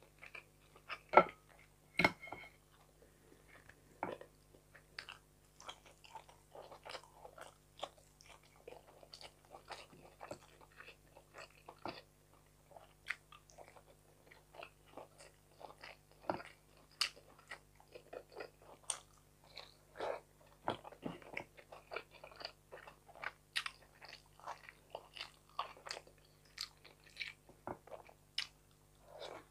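Close-miked chewing of fried fish and rice: many short mouth clicks and crunches, with two louder sharp clicks about a second and two seconds in.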